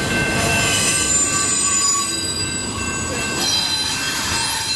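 Double-stack intermodal train's well cars rolling past with a steady rumble, their steel wheels squealing against the rails in several high, held tones.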